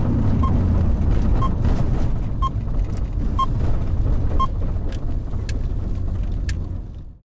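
Nissan Skyline R34's engine running, heard from inside the cabin as a steady low rumble, with a short electronic beep repeating about once a second. The sound fades and cuts off just before the end.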